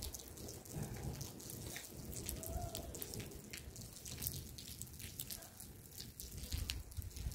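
Rain, with scattered raindrops and drips landing at uneven intervals.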